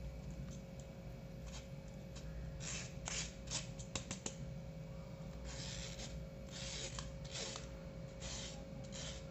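Steel spoon scraping and pressing spinach paste through a stainless-steel mesh sieve: a string of short, irregular scraping strokes of metal on metal mesh, straining out the coarse chilli and spinach bits.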